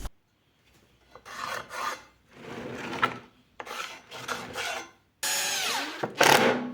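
Heavy steel pipe turned by hand on a lazy Susan bearing, making a series of rasping, scraping rubs about a second each. One near the end carries a wavering squeal.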